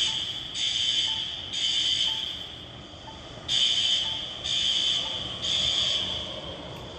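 Building fire alarm sounding a steady, piercing high tone in pulses, three to a group about a second apart, with a longer pause between groups: the temporal-three evacuation signal.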